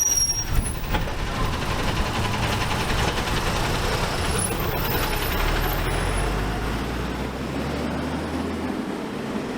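Steady road traffic noise, with a low engine hum coming in about halfway through and stopping shortly before the end.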